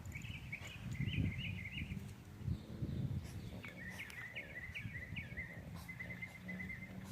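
A small bird chirping outdoors in quick, repeated short phrases, with a brief pause in the middle.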